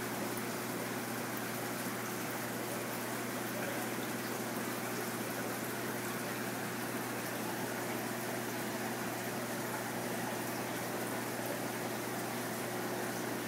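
Steady rush and bubbling of aquarium water circulating, with a low steady hum underneath.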